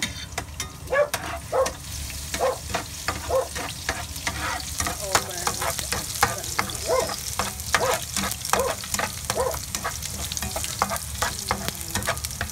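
Utensil stirring in a pan with regular strokes, about two to three a second, while garlic fries in hot oil with a steady sizzle.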